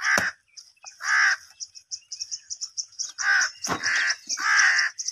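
Crows cawing, about five short harsh caws over a steady high chirping. Two dull thuds of a mattock striking the dry ground, one right at the start and one just under four seconds in.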